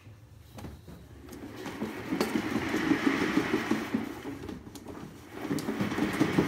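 A One Fast Cat exercise wheel turning under a Maine Coon running on its track, a rolling rumble and rattle with a few sharp clicks. It builds from about a second and a half in, eases around five seconds, then picks up again near the end.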